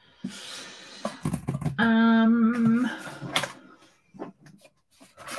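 A woman hums one held note for about a second, after a soft rustle, followed by a few light taps and clicks.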